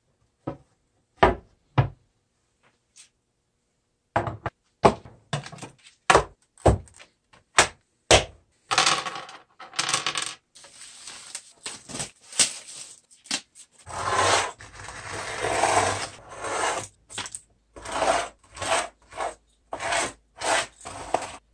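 Hard skateboard parts (metal trucks, mounting bolts, plastic rails and riser pads) are set down one after another on a workbench, giving a string of sharp clacks and clinks. About halfway through come longer rustling, crinkling stretches as a sheet of grip tape is handled and its backing paper is peeled. A few more clicks follow near the end.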